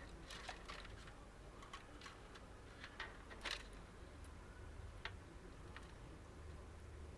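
Faint, irregular light clicks and ticks of PC cables and their plastic connectors being handled and pushed through a computer case during cable routing, over a low hum.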